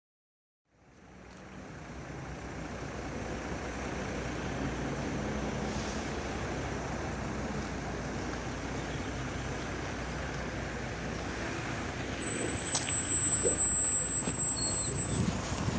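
MAZ-103 city bus on the move, heard from inside: steady engine hum and road noise that start about a second in and build up. Near the end it grows louder, with a few knocks and a thin high tone lasting about three seconds.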